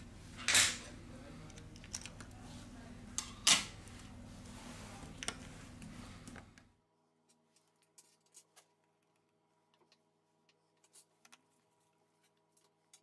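Sharp clicks and taps of small plastic and metal phone parts being pressed and fitted into the opened phone, with two loud clicks in the first few seconds over a low steady hum. About halfway through the hum cuts off abruptly and only faint ticks remain.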